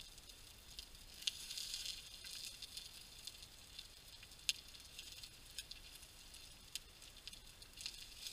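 Meat frying in a metal camping frying pan, a faint sizzle with scattered sharp pops and crackles as it is turned with a wooden spatula.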